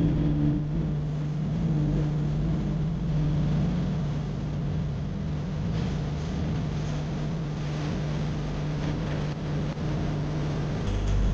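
Steady engine and road noise inside a car's cabin while driving, with a constant low drone.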